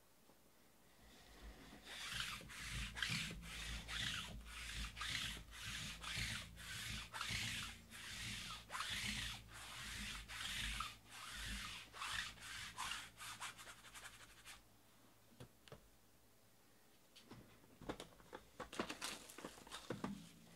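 Repeated rubbing strokes, about two a second, for around twelve seconds, then stop. Near the end comes the crackle of plastic shrink wrap being torn off a trading-card hobby box.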